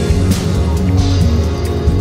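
Live band music, an instrumental stretch without singing: a low bass line under held chords, with regular sharp hits.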